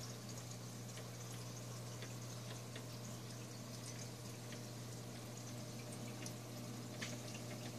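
Aquarium equipment running: a steady low hum under trickling, bubbling water, with faint scattered clicks.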